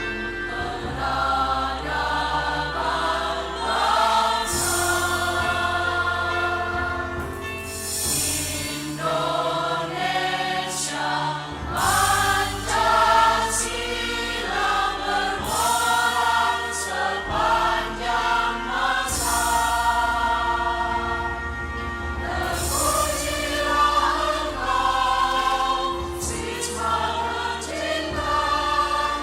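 Adult choir singing with symphony orchestra accompaniment, the voices moving through sustained sung phrases over held low bass notes.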